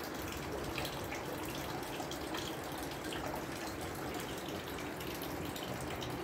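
A thin stream of water pouring steadily from a small pipe spout into a stone fountain trough, splashing.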